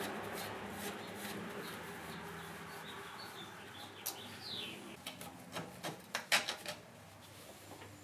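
Light clicks and rubbing from a loose socket and gloved hands working at a golf cart engine's carburetor. A cluster of sharper clicks comes a little past the middle, and a short, faint, high falling chirp about four seconds in.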